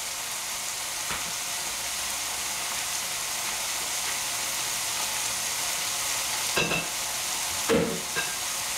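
Corn and peppers sizzling steadily in oil in a hot pan. Two clinks of a ceramic bowl come near the end.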